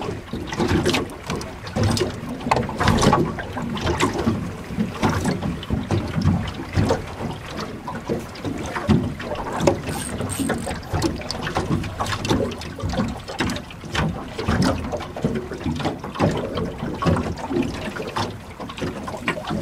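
Small waves slapping and lapping irregularly against the hull of a small aluminium boat.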